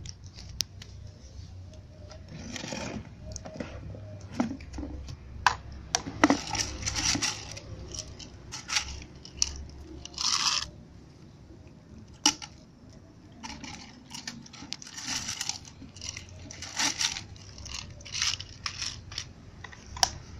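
Cats crunching dry kibble in irregular bursts of crackly chewing. About halfway through, a plastic bag crinkles as more kibble is poured out and scatters onto the concrete floor.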